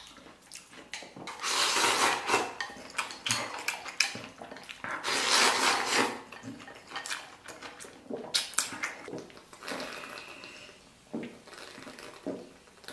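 Close-miked eating: two long, loud slurps as rice and glass noodles are shovelled from a raised bowl with chopsticks, between stretches of chewing and light clicks of chopsticks on the bowl. Swallows from a plastic soda bottle come near the end.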